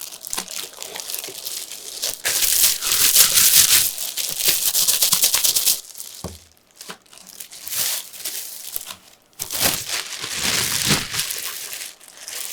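Packaging crinkling and rustling as it is handled and pulled away from a YouTube Silver Play Button award, in two long stretches with a short lull about halfway through.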